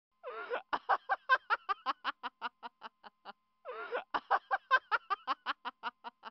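A laughing sound effect played twice over, the same clip each time: a brief up-and-down cry, then a run of quick 'ha-ha' pulses, about five a second, that fade away.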